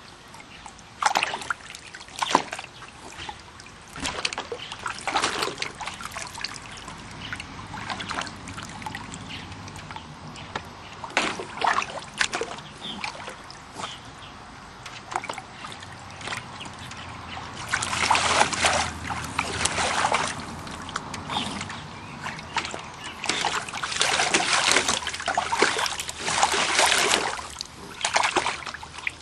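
Water in a small pool trickling and splashing irregularly as a pet paws and lunges at it. There is a longer run of heavier splashing past the middle and another near the end.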